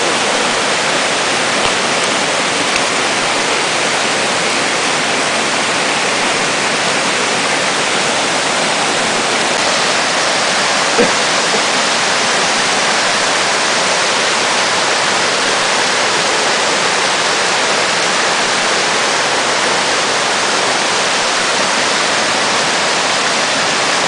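A cascading waterfall swollen by several inches of rain, its water rushing steadily down the rocky stream bed as an even, loud hiss of white water.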